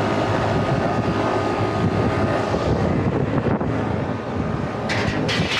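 Steady drone of rooftop air-conditioning equipment running, with wind on the microphone. Two short bursts of hiss near the end.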